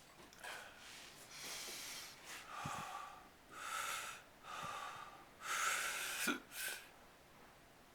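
A man breathing hard: about six deep, noisy breaths in quick succession, the loudest near the end, gasping for air after holding his breath.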